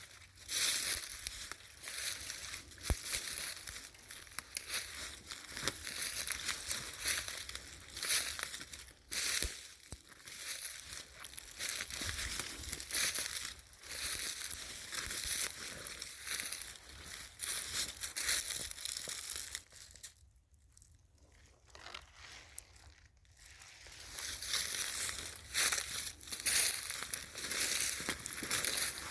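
Footsteps crunching through dry fallen leaves on the forest floor at a walking pace, a crunch or two a second. The steps stop for a few seconds about two-thirds of the way through, then go on.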